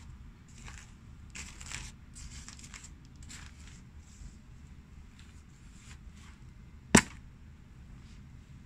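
Plastic sheeting rustling under shoes, then about seven seconds in a single sharp crack as a shoe sole presses down on a small green pumpkin.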